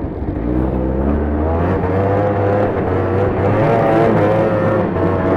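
Arctic Cat Blast snowmobile's two-stroke twin engine accelerating under way. Its pitch climbs over the first second or two, then holds steady at higher revs.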